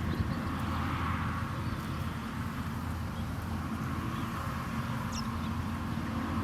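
Steady low outdoor rumble, with a couple of faint, short, high bird chirps about five seconds in.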